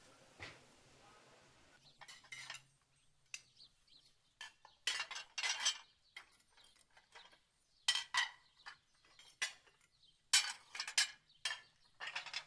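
China plates clinking against one another as they are wiped and stacked by hand, in irregular clusters of short, bright clinks starting about two seconds in.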